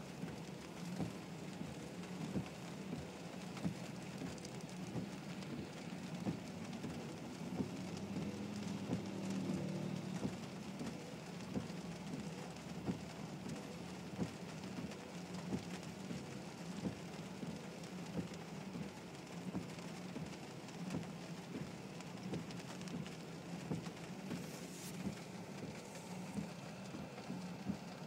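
Rain falling on a car's roof and windows, heard from inside the cabin: a steady hiss dotted with frequent sharp drop hits, over a steady low hum.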